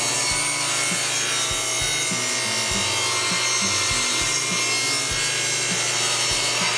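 Table saw ripping a wood board on a bevel cut. The blade cuts through the wood with a steady, loud cutting noise over the motor's low hum.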